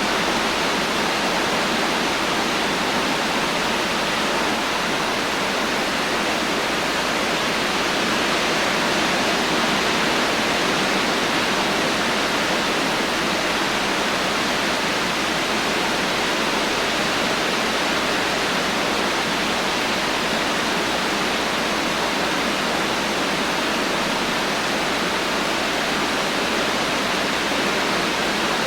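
Heavy rain falling steadily, an even hiss with no thunder and no single drops standing out.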